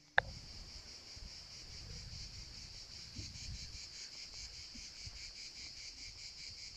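Outdoor chorus of insects chirring steadily in a fast, even pulse, with a low rumble of wind on the microphone underneath. A sharp click just after the start marks where the sound cuts in.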